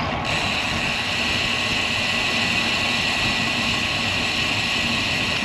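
Steady rush of wind and road noise while riding a road bicycle in a gusty crosswind, with a high, even hiss that switches on suddenly just after the start.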